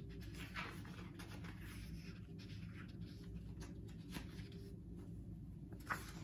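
Faint rubbing and light brushing of fingers on the paper page of a picture book, a few soft scratchy touches over a low steady room hum.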